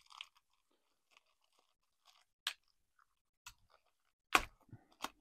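Small clear plastic bag crinkling as it is pulled open by hand. There are a few scattered crackles, and the two sharpest come near the end.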